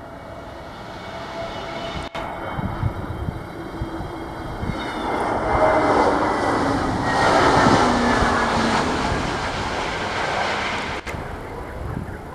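Jet airliner passing close on its landing approach: a roar that builds to a peak midway and then eases off, with a high engine whine over it early on.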